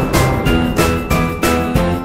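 Background music with a steady beat and bright, bell-like high notes.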